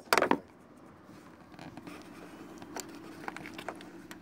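A few sharp plastic clicks, then faint scattered taps, as the number-plate light's lens and bulb are handled, over a low steady hum.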